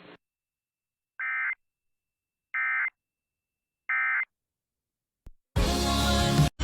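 Three short, identical data-tone bursts about a second and a half apart: the NOAA Weather Radio EAS/SAME end-of-message (EOM) code that closes the tornado watch broadcast. Near the end, loud music starts abruptly.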